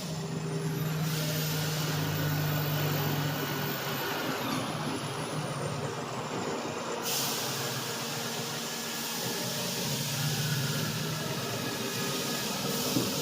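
CNC router with a water-cooled spindle running, a steady hiss under a thin high whine that climbs at the start, holds, then slides down in pitch between about four and seven seconds in.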